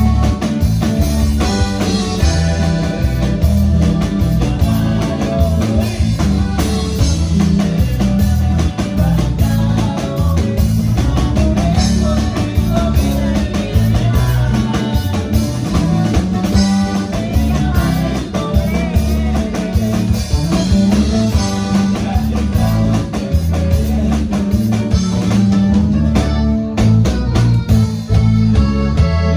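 Live norteño band playing: button accordion, twelve-string guitar, electric bass and drum kit together, with a heavy, dominant bass.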